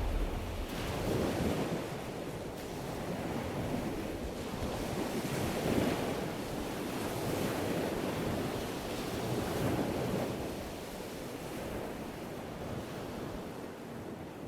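Surf on a sandy beach, waves breaking and washing in every few seconds, with wind on the microphone.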